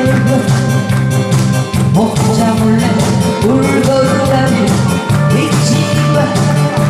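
A woman singing a Korean song into a hand-held microphone over a loud backing track with a steady beat.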